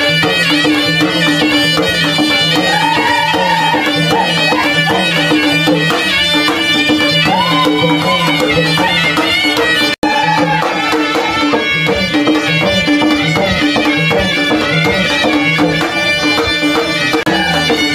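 Traditional folk music for the Dangi tribal dance: a melody over a steady, repeating drum pattern. It cuts out for an instant about ten seconds in.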